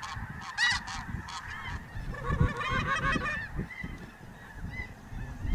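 A flock of geese honking overhead, many calls overlapping, thickest in the middle. A single shotgun blast goes off right at the end.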